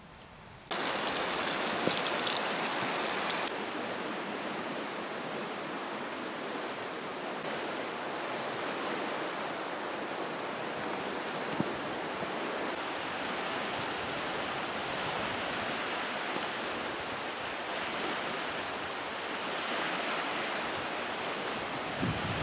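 Strong wind blowing across a choppy lake, with waves washing against the shore: a steady rushing noise, louder and hissier for its first few seconds.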